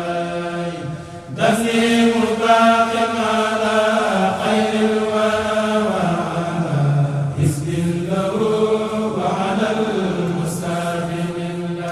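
A Mouride kourel (chanting group) chanting an Arabic xassida together in long, slowly rising and falling held phrases, with a brief breath-pause about a second in.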